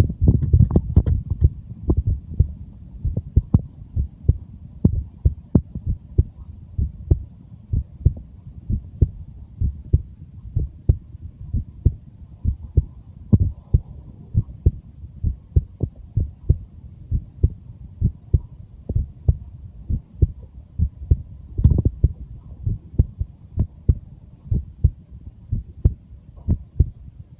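A 23-year-old's heartbeat: regular, even low thumps over a steady low hum. Twice a brief, fuller low rumble rises over the beats, once right at the start and once about four-fifths of the way through.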